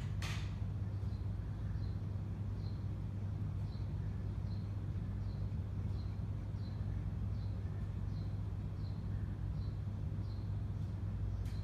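Domestic cat panting from heat stress: quick, regular breaths about one and a half a second, each with a faint high squeak, over a steady low hum. A click sounds right at the start.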